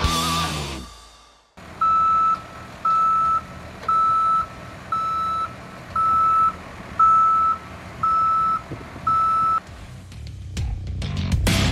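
A fuel tanker truck's reversing alarm beeps eight times at one steady pitch, about one half-second beep a second, over a low engine rumble. Music fades out at the start and swells back in near the end.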